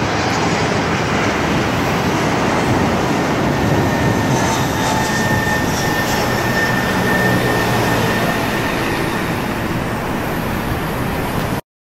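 Jet airliner's engines at takeoff power on the takeoff roll: a loud, steady rushing noise with a faint high whine, cutting off suddenly near the end.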